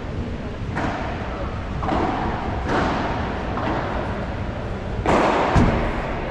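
Padel rally: the ball is struck back and forth, giving dull thuds about once a second over steady crowd hubbub in a hall. The loudest pair of hits comes about five seconds in.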